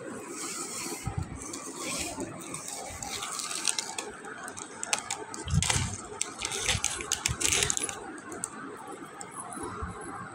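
A small plastic zip bag crinkling and rustling as it is handled and opened, with sharp clicks and a metal link-chain bracelet rattling, and a heavier bump a little past halfway.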